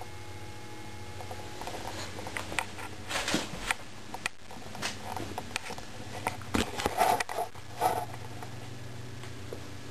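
Irregular rustling, clicks and scrapes of handling noise as the camera is moved, from about a second and a half in until about eight seconds in, over the steady low hum of a running mercury vapor lamp's ballast.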